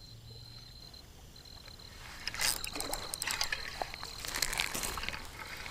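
Water splashing and sloshing, starting about two and a half seconds in, over a steady high insect trill.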